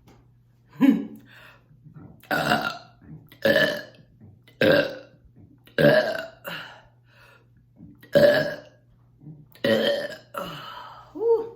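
A woman burping repeatedly after gulping carbonated Coke: about eight loud, separate burps, each under a second long and roughly a second apart.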